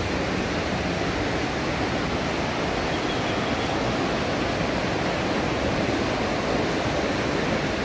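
River water rushing in a steady wash, the river running fast and churned up after a night of rain.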